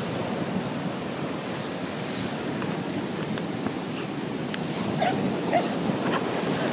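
Steady wash of ocean surf and wind. Over it, about five seconds in, a Lhasa Apso gives a few short excited yips and whines while playing.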